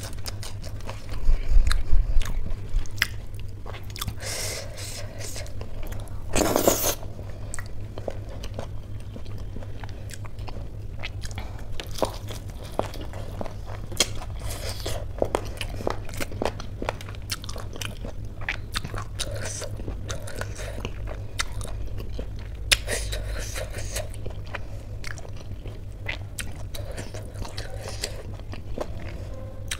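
Close-up eating sounds: wet chewing and smacking of khichdi eaten by hand, with crisp crunches from biting fried pakoda, many small clicks and crackles throughout. The loudest event is a short noisy crunch about six and a half seconds in, over a steady low hum.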